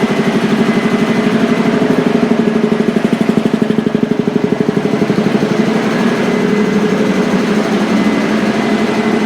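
A small engine running steadily at idle with a fast, even pulse.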